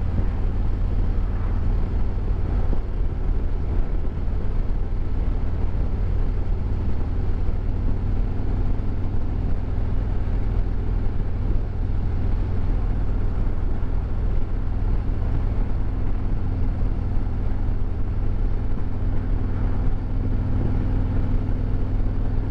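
2022 Harley-Davidson Road Glide Limited's Milwaukee-Eight 114 V-twin running steadily at cruising speed under a steady low rumble, with a haze of road and wind noise over it.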